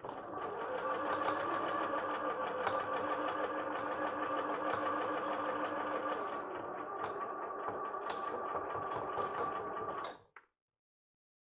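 Bernette b38 computerized sewing machine stitching a seam through lace fabric at a steady speed, a continuous motor whine with a fast needle clatter, stopping suddenly about ten seconds in.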